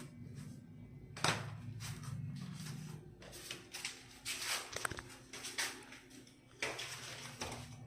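Footsteps scuffing along at a walking pace, a short noisy scrape about once a second with a sharper one about a second in, over a steady low hum.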